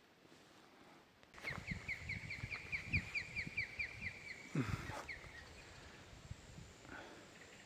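A bird calling a rapid run of short, falling whistled notes, about four or five a second, starting about a second and a half in and stopping about four seconds later. Irregular footsteps thud underneath while it calls.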